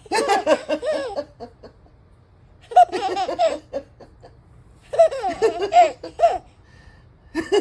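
Five-month-old baby laughing in three bouts of rapid, pulsing giggles with short pauses between, a fourth bout starting near the end.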